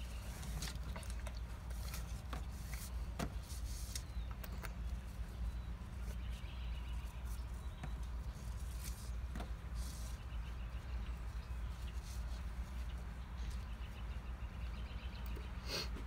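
Paracord rustling and scraping, with scattered light clicks, as it is pulled through loops and wrapped around a monkey-fist ball. A steady low rumble runs underneath.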